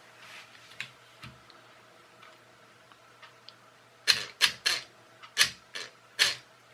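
Car door lock actuator clacking as a 9-volt battery is touched to and taken off its two wires: a few faint ticks, then about five sharp clicks in quick succession in the second half as its bolt pulls in and springs back out.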